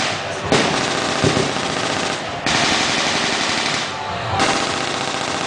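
Rapid automatic gunfire from an infantry squad's rifles and machine guns, in long overlapping bursts that break off briefly about two and a half seconds in.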